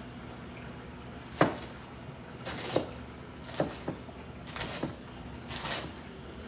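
Chef's knife chopping a head of lettuce on a plastic cutting board: a handful of sharp knocks of the blade striking the board, the loudest about a second and a half in, with rustling of the cut leaves between strokes.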